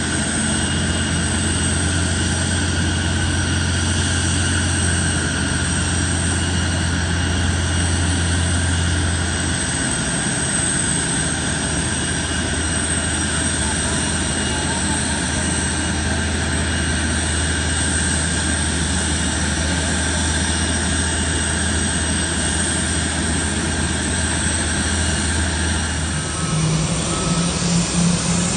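Boeing 747-400 jet engines running steadily on the ground after pushback: a continuous roar with faint held high whines. The sound shifts near the end, with a different low hum taking over.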